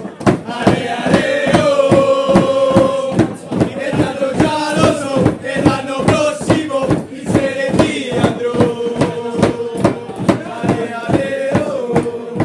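A group of young men chanting loudly in unison, with a steady beat of about three sharp hits a second running under the chant.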